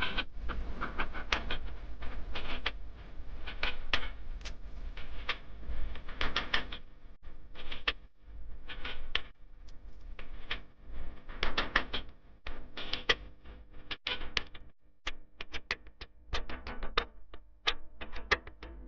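Camera shutters clicking rapidly and irregularly in clusters, a paparazzi-style sound effect.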